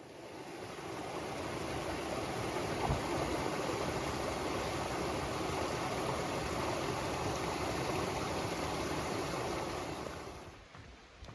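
Steady rush of flowing water from a mountain stream, fading in at the start and fading out about ten seconds in.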